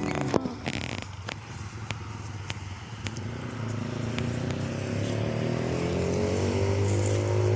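A motor vehicle engine approaching, growing steadily louder with its pitch slowly rising, after a few sharp ticks in the first couple of seconds.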